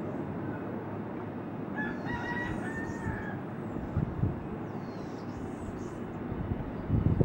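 A single drawn-out pitched call, rooster-like, lasts about a second and a half starting about two seconds in. Under it runs a steady low rumble. Faint high chirps repeat every few seconds, and a couple of dull thumps come near the middle and at the end.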